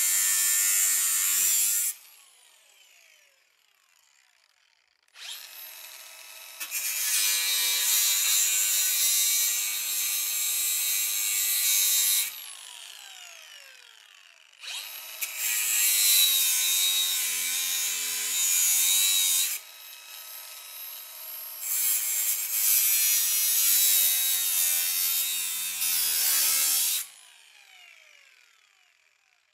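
Cordless Milwaukee M18 grinder grinding rust off rusted steel body panel, in four runs of several seconds. Each run ends as the motor winds down with a falling whine. The motor pitch wavers and sags as it is pressed into the metal.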